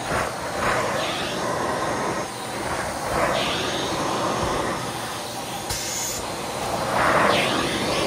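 Dyson Cinetic Big Ball upright vacuum running steadily with suction through its hose and nozzle tool. The rush of air swells and changes several times as the nozzle is worked over carpet, loudest near the end.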